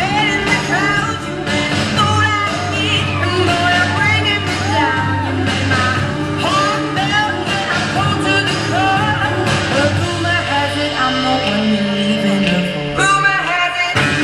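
Show choir singing an up-tempo pop-rock song in several voices over instrumental accompaniment with a steady bass. The bass drops out briefly near the end, then the full sound comes back.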